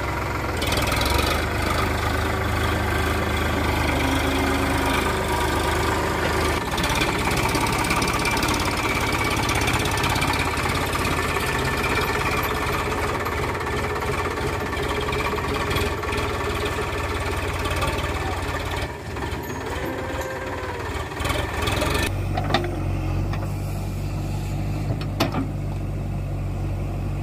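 Diesel engines of a JCB 3DX backhoe loader and a Sonalika DI 60 tractor running steadily. About 22 seconds in, the sound changes to a deeper engine note, with a few sharp knocks near the end.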